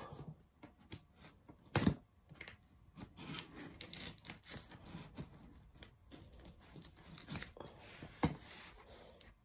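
Scissors cutting open a cardboard box: a run of snips, scrapes and tearing, with two sharper knocks, one about two seconds in and one near the end.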